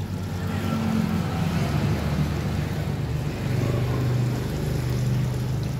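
Water pouring from a return pipe into a koi pond, a steady splashing over a low hum.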